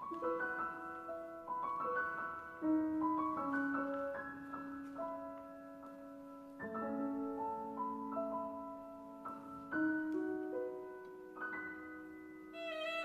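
Grand piano playing a slow introduction of single notes and chords, each note struck and left to ring; a violin comes in with a wavering, vibrato tone near the end.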